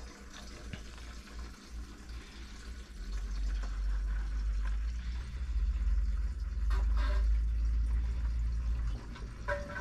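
Petrol trickling out of a clear plastic siphon tube into a plastic jerry can. A louder low rumble sits under it from about three seconds in until near the end.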